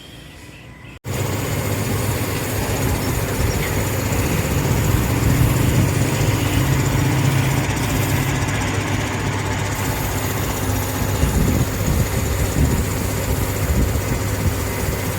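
Steady mechanical rumble with a low hum, starting abruptly about a second in.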